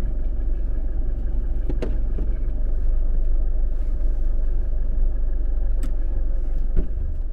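Car rolling slowly along a gravel drive, heard inside the cabin: a steady low engine and road rumble, with a few sharp clicks about two, six and seven seconds in.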